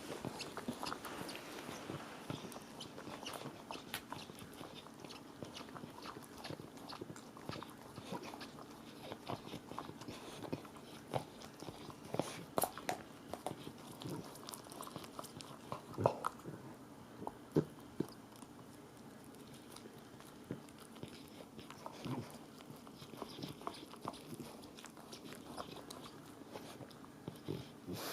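A dog chewing and mouthing a toy: irregular crunching and clicking, with a few louder snaps partway through.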